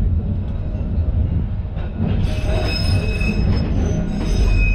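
Liverpool bogie tram No.762 running along the track with a steady low rumble. About two seconds in, a high-pitched wheel squeal sets in and holds to near the end.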